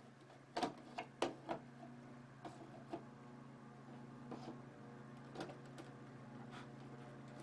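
Hard plastic clicks and knocks of a monitor base being fitted onto a CRT monitor. Several come in quick succession in the first second and a half, then a few more are scattered through the rest, over a steady low hum.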